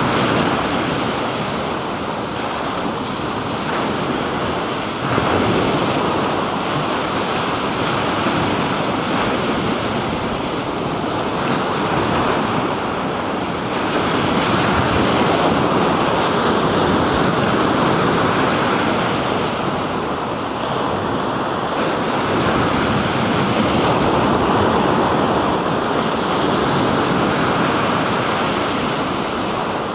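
Black Sea surf washing onto the shore: a steady rush of waves that swells louder and eases every few seconds, one surge coming suddenly about five seconds in. Wind buffets the microphone.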